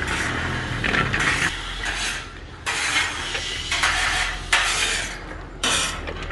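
Boiled in-shell peanuts pouring out of the cooker's lifted basket and sliding over stainless steel, a rattling, rustling clatter that comes in several surges, with a low steady hum underneath.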